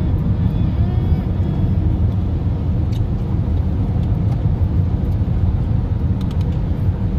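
Steady road and engine rumble heard from inside a moving car's cabin.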